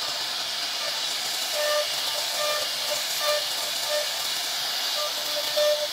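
CNC router spindle running at high speed while its end mill carves a relief pattern into a wooden panel: a steady high hissing whine, with short pitched pulses every so often as the bit bites into the wood.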